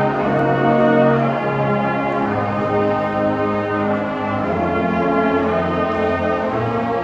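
Marching band brass section, sousaphones included, playing slow held chords; the bass note steps to a new pitch about every two seconds.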